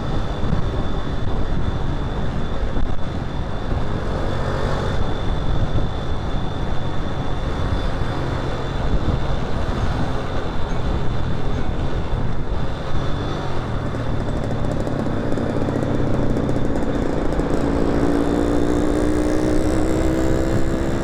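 Motorcycle ride in traffic: a steady rush of wind and road noise with engines running. Near the end an engine's pitch rises as it speeds up.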